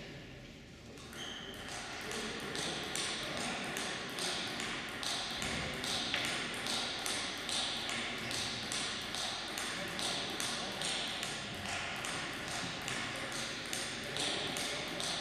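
Table tennis balls clicking off bats and tables in a steady run of about three clicks a second, from play at other tables in the hall.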